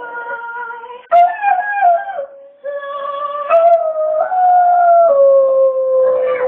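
A dog howling in long drawn-out notes, the pitch stepping up and down like a tune, with short breaks about a second and two and a half seconds in.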